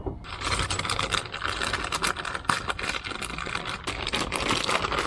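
Handling noise from unpacking and assembling the blower rack: a dense, continuous run of small clicks and rustling as its parts and packaging are handled.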